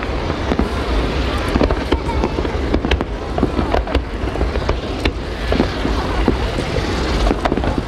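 Fireworks going off: a scattered string of sharp cracks and bangs over a steady low rumble.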